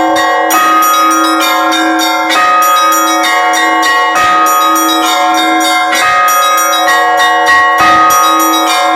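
Russian Orthodox church bells rung in a continuous peal: quick strokes on the small, high bells over the sustained, pulsing ring of the larger bells.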